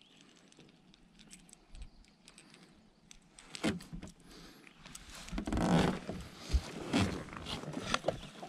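Handling sounds while a caught northern pike is unhooked: faint clicks and jingles of the lure at first, then from about three and a half seconds in a run of louder irregular knocks and rustles as the fish is gripped and the lure worked free.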